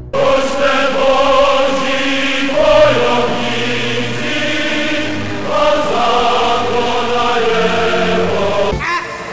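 Choral music: a choir chanting long held chords that shift every two or three seconds, breaking off near the end.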